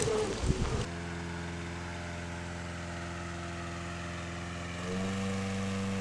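A steady low drone with a stack of even overtones starts suddenly about a second in and holds without wavering. Near the end it shifts to a slightly higher, louder pitch, like a held chord changing.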